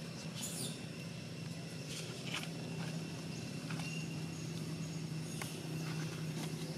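Outdoor ambience: a steady low hum with faint high-pitched insect-like tones and scattered small clicks and rustles.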